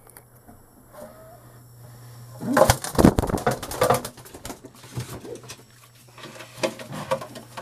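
Racing pigeon moving about in a small box: a loud flurry of fast wing flaps and scuffing knocks from about two and a half to four and a half seconds in, then a few weaker flutters near the end.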